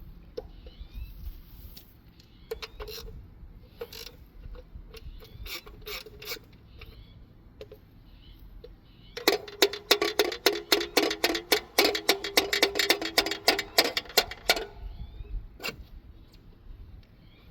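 A 10 mm ratchet wrench clicking on bolts: a few short strokes early, then a rapid, loud run of clicks at about eight a second for roughly five seconds.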